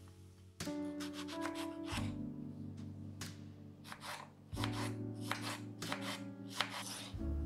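Paring knife slicing through a ripe tomato onto a wooden cutting board: a series of short cutting strokes, with soft background music.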